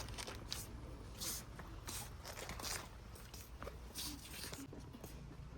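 Irregular rustling and handling noises, a few short scrapes a second or so apart, over a steady low hum.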